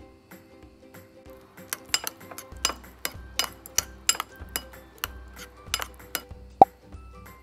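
Kitchen utensil clinking against a dish in a quick run of taps, about three a second, with one louder sharp knock near the end, over background music.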